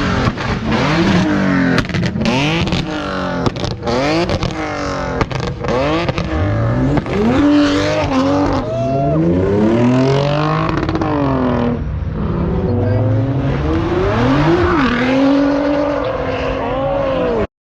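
A car engine revved hard over and over, its pitch sweeping up and falling back many times in quick succession, with sharp pops and cracks between the revs during the first several seconds.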